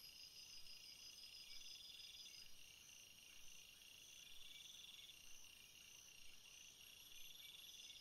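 Near silence, with faint high-pitched chirping that repeats in trains about a second long.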